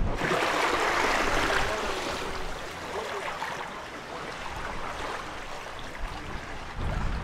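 Water rushing and splashing along the hull of a sailing catamaran, loudest in the first couple of seconds.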